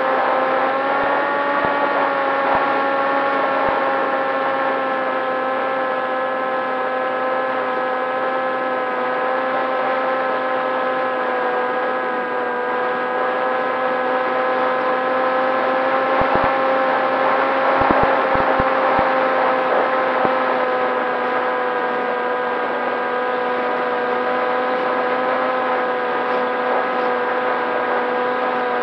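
Electric motor and propeller of a Popwing flying wing, heard on the aircraft itself: a steady whine at near-constant throttle over a rush of air. The pitch dips slightly about a second in and drifts a little after that, with a few low bumps of wind past the middle.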